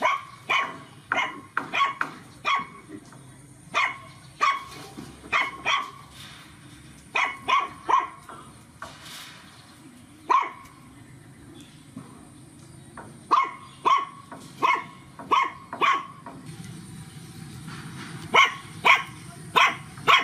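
Young puppies barking and yapping: short, high yaps coming in runs of three to six, with pauses of a second or more between runs.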